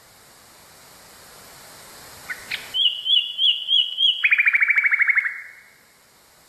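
Nightingale singing one phrase: two brief notes, then five repeated up-and-down whistled notes, then a fast trill of about fourteen clipped notes, over a background hiss that swells before the song.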